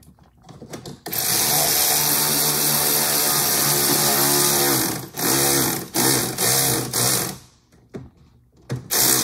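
Cordless power driver spinning a 10 mm deep socket to run in and tighten the bolt that holds the ECU and storage bracket. One long run of about four seconds, then several short trigger bursts.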